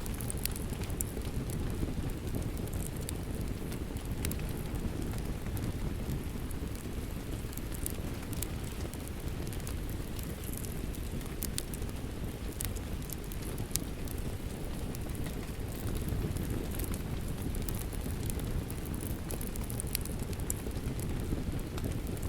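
Rain falling steadily together with a crackling fire: a constant low, even rush with scattered sharp crackles and pops throughout.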